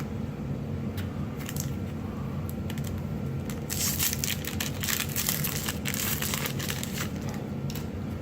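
Crinkling of a foil booster-pack wrapper being handled and opened, loudest from about four to seven seconds in, with a few light clicks before it, over a steady low hum.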